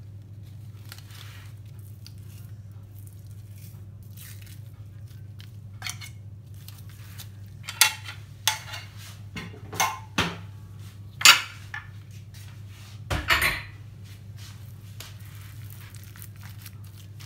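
Metal spoon knocking and scraping against a ceramic bowl and the corned beef tin as canned corned beef is scooped out and broken up. There are a dozen or so scattered clinks in the middle, the loudest about two-thirds through, over a steady low hum.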